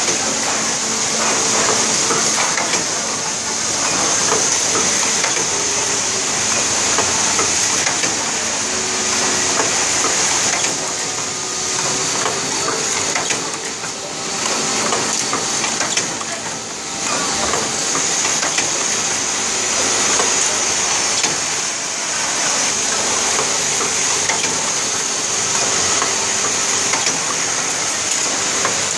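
Automatic C-type hanger hook assembly machine running, with a steady high hiss over dense, even mechanical noise.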